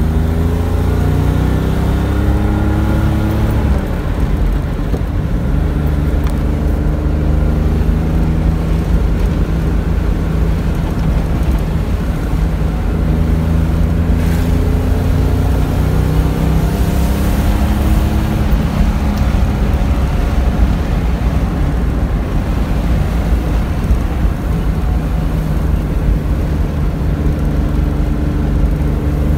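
1973 Porsche 911T's air-cooled flat-six engine pulling on the road at around 3,000 rpm, heard from the driver's seat. Its pitch climbs, falls suddenly about four seconds in, then rises slowly again.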